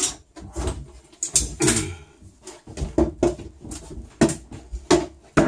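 Irregular clicks, knocks and rustling from hands and a hand tool tightening a deck hatch's fasteners overhead, in a small boat cabin.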